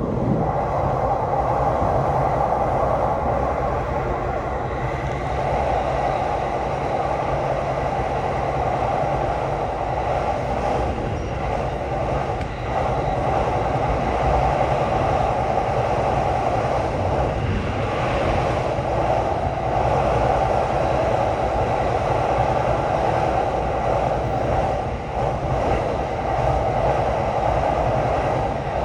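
Tokaido Line electric commuter train running along the line, heard from inside the carriage: a steady running noise of wheels on rails.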